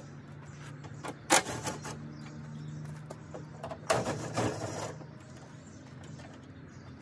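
Cordless drill-driver spinning for about a second to back out a headlight mounting screw, a little before the midpoint of the second half, preceded by a sharp click a little over a second in.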